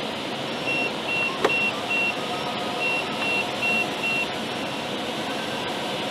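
Steady rush of airflow inside a glider cockpit, with an audio variometer giving short, evenly spaced high beeps, about two and a half a second, in two runs with a brief break, the beeping that signals the glider is climbing in lift. A single sharp click about a second and a half in.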